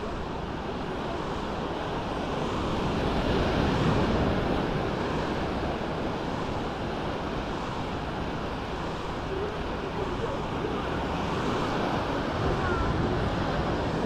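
Small sea waves breaking and washing up a sandy shore in a steady wash that swells louder twice, with wind rumbling on the microphone.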